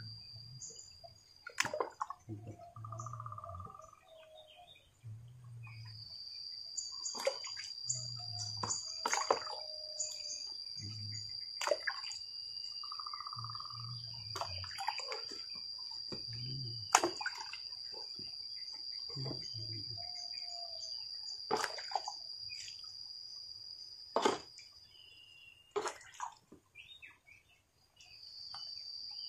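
Outdoor rural ambience: bird calls over a steady high-pitched drone that drops out twice, with sharp knocks or clicks every one to three seconds.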